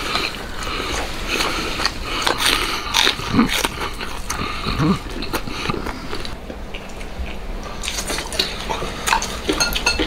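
Person eating charcoal-roasted ostrich leg meat: wet chewing and smacking made up of many short clicks, with a couple of brief low 'mm' hums about three and five seconds in.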